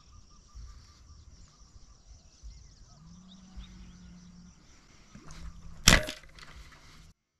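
A wooden, rubber-band-powered speargun fires once near the end, a single sharp snap that is the loudest sound by far, with a smaller click just before it. Under it is a low rumble of wind and a faint steady hum.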